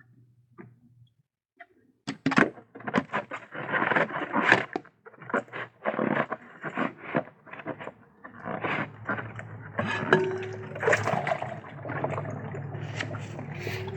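Pigeons in a loft: quiet at first, then a burst of quick rustling and wing-flapping about two seconds in, followed by a steady stir of movement with short low cooing notes.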